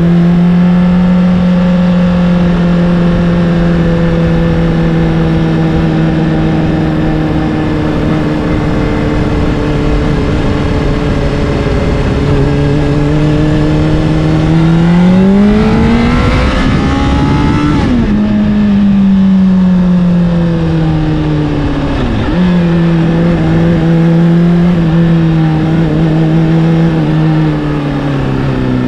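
Honda CBR600RR's inline-four engine through an Akrapovic exhaust, heard while riding: a steady running note that sags as the bike rolls off, then climbs under acceleration. It drops sharply on an upshift about two-thirds of the way in, jumps up again on a downshift a few seconds later, and falls away near the end.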